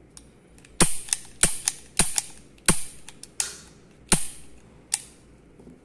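Taurus G2C pistol being dry-fired over and over: about seven sharp metallic trigger clicks, roughly one every 0.7 s, most followed by a fainter click.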